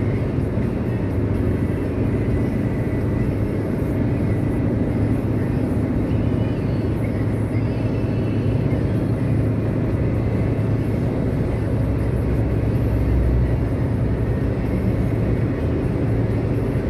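Steady road and engine drone of a car cruising at highway speed, heard from inside the cabin.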